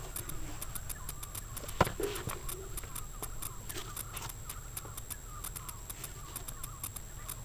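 Outdoor ambience: faint bird chirps and scattered small clicks, with one sharp knock about two seconds in.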